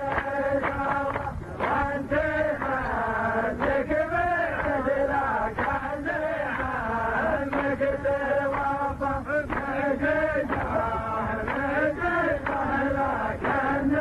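A man's voice chanting Arabic Nabati poetry in a drawn-out melodic style, the pitch swaying in long glides over a steady held tone.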